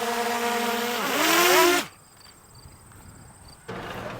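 Small camera drone's propellers buzzing, the pitch wavering and bending as it manoeuvres, then cutting off abruptly about two seconds in. A quieter steady noise comes in near the end.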